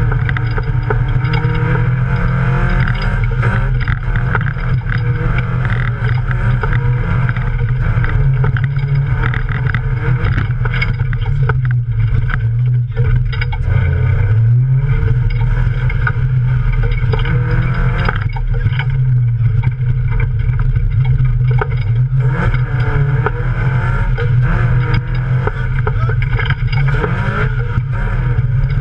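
Toyota Yaris race car's engine running hard, heard inside the cabin, the note falling about halfway through and climbing again, then rising and falling repeatedly later on as the car is driven over the offroad course.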